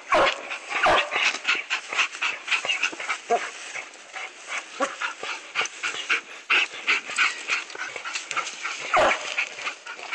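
Treed coonhounds barking at the base of a tree, a fast, unbroken string of short barks, with a few louder ones near the start and about nine seconds in. The steady barking at the trunk is the hounds' sign that they have a raccoon treed.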